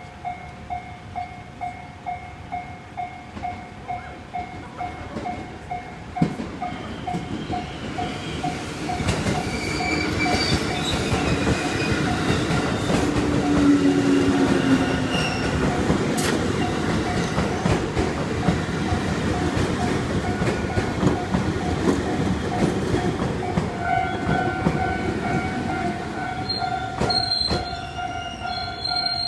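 Japanese level-crossing warning bell ringing about twice a second. From about eight seconds in, an electric train passes over the crossing with loud wheel-and-rail rumble and clatter, while the bell keeps ringing.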